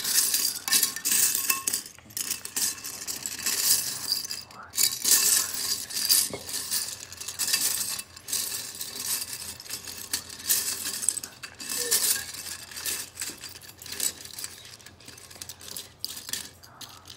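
Loose plastic Lego pieces rattling and clinking against each other and a bowl as a hand rummages through them, searching for parts. The clatter is busiest in the first half and softer later.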